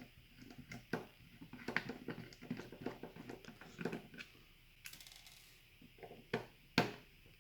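Small screws being undone from a Gen 8 gel blaster gearbox with a screwdriver: faint, irregular clicks and ticks of the tool and screws, with a couple of sharper taps near the end.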